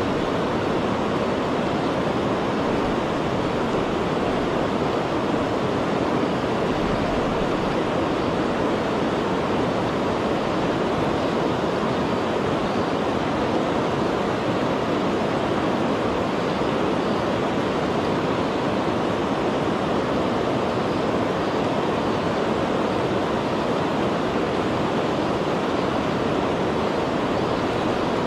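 Shallow river water rushing steadily over a stony bed.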